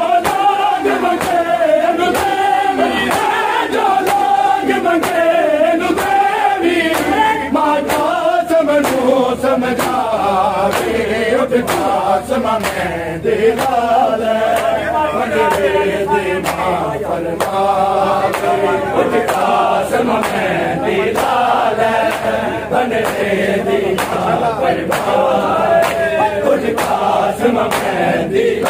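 Group of men chanting a noha, a Shia mourning lament, in unison, with sharp strikes at a fairly regular beat of about one to two a second, the chest-beating of matam.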